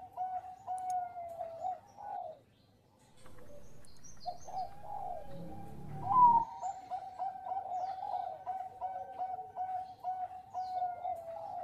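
Zebra dove (Bangkok-strain perkutut) singing its rapid run of short, staccato coos, breaking off a little after two seconds in and resuming. A low noise swells under the song in the middle and is loudest about six seconds in.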